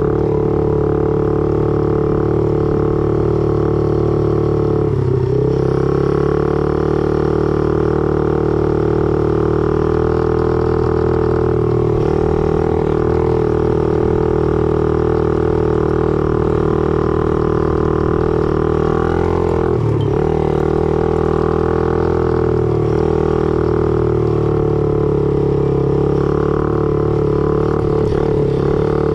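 Small dirt bike's engine running under way with a steady droning note. Its pitch dips briefly and picks up again a few times.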